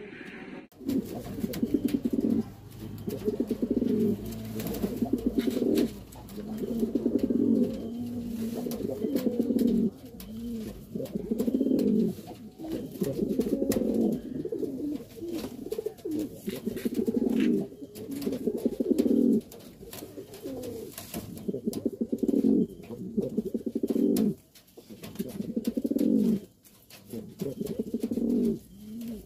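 Trumpeter pigeons cooing in a long run of low, rolling, drum-like phrases, each a second or two long, with short breaks between them.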